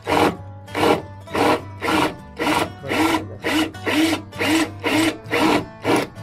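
Cordless drill drilling out a steel rivet in a van's roof rail, the trigger pulsed so the drill runs in short bursts about twice a second, each rising and falling in pitch as the bit bites into the rivet head.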